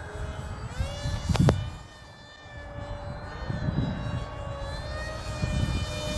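RC foamboard pusher prop jet's motor and propeller whining, the pitch rising sharply about a second in as the throttle opens, then holding and wavering up and down. Strong wind buffets the microphone with gusty low rumbles, the loudest jolt about one and a half seconds in.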